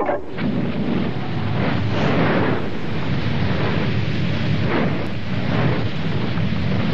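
Sound effect of a large blaze burning: a steady, dense low rumble with hiss above it and small swells.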